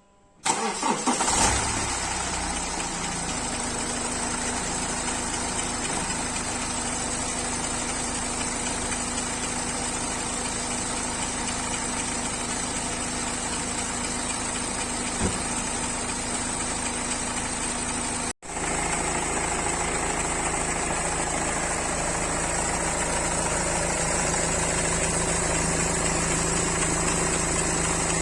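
BMW 3 Series engine cold-starting about half a second in, catching at once and settling into a steady idle, with the knocking noise that came up after the car sat unstarted for a long time. The sound breaks off for an instant about two-thirds of the way through, then the idle goes on.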